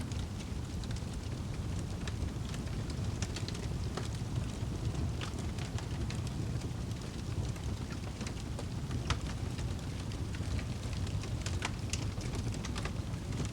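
Fireplace fire crackling, with irregular sharp pops over a steady low rumble.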